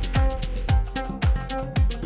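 Music with a steady drum beat, a kick drum hitting about twice a second under cymbal taps and sustained instrument notes.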